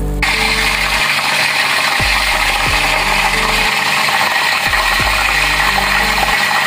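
Chicken thighs frying in hot oil: a dense crackling sizzle that starts suddenly and keeps on steadily.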